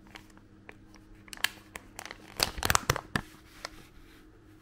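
Foil pouch of Keana rice sheet masks being pulled open by hand: the packaging crinkles and crackles in a run of sharp clicks, loudest about halfway through.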